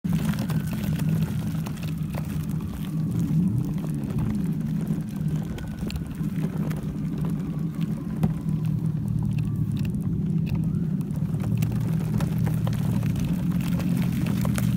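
A low, steady engine-like rumble whose pitch wavers slowly up and down, with scattered light clicks and crunches over it.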